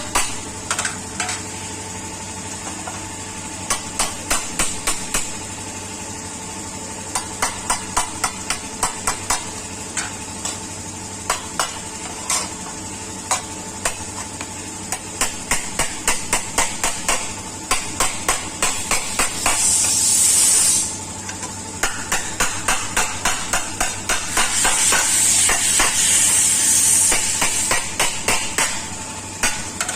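Hand hammer tapping out dents in the steel body panel of a Maruti 800, in quick runs of several strikes, about four or five a second, with short pauses between runs. Over a steady hum there are two stretches of hissing, one about two-thirds of the way in and a longer one near the end.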